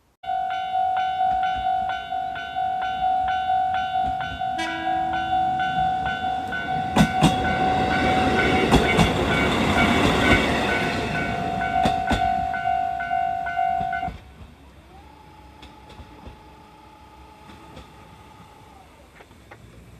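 Japanese level-crossing alarm ringing in a steady, repeated pattern as a JR Hokkaido KiHa 40 diesel railcar approaches and passes. A short horn note sounds about five seconds in. The train's wheels clatter over the rail joints, loudest around ten seconds in. The alarm stops suddenly about fourteen seconds in, leaving a much quieter background.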